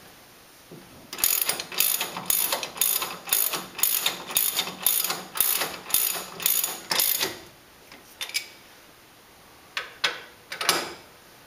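Hand ratchet wrench clicking in quick back-and-forth strokes, about two to three a second, as it runs a brake caliper mounting bolt down before torquing. The ratcheting stops about seven seconds in, leaving a few single clicks of metal on metal.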